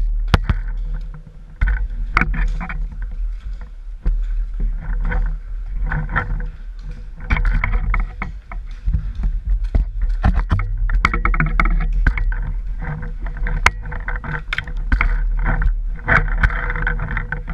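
Rumbling handling and movement noise on a marker-mounted GoPro as a paintball player crouches and then runs over pine-needle ground, with repeated rustling bursts and scattered sharp clicks and knocks.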